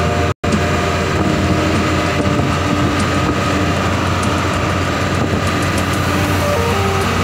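Mitsubishi truck running down the road, heard from inside the cab: a steady low engine drone under even road noise.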